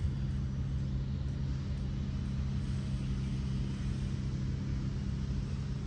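Steady low hum and rumble of a distant motor, even and unchanging.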